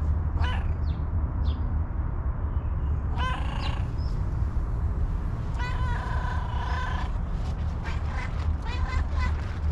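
Tabby cat meowing repeatedly: several short meows with a longer, drawn-out one around the middle, over a steady low rumble.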